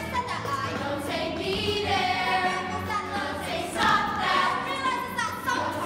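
Children's chorus singing a musical-theatre song together over an instrumental backing track.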